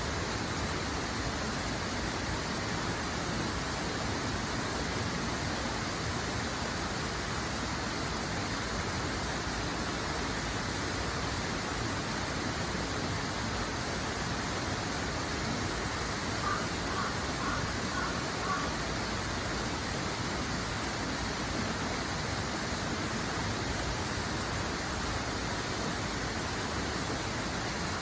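Rushing water, steady and unbroken, like a stream or small waterfall. A little past halfway, a short run of about five quick high notes sounds over it.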